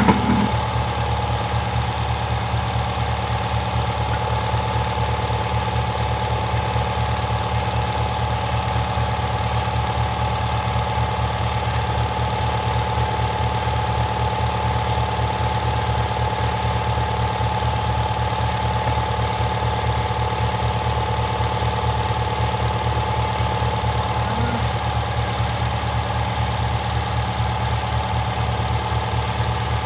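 A machine running steadily, with a rapid, even low throb and a constant hum.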